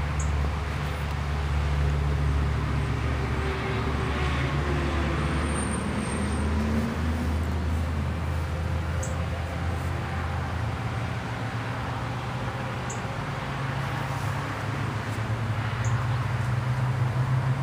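Steady low motor rumble with a held hum, like vehicle traffic, with a few faint short high ticks scattered through it.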